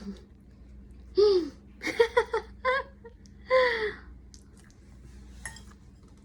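A toddler laughing: a high squeal that falls in pitch, a quick run of giggles, then another falling squeal.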